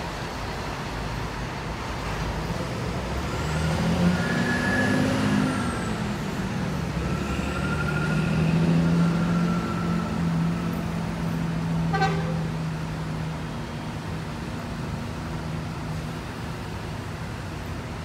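An intercity bus pulls away with its engine running, sounding its horn in long held tones at several pitches: once at about four to six seconds in, and again from about seven to thirteen seconds. A brief sharp sound comes about twelve seconds in.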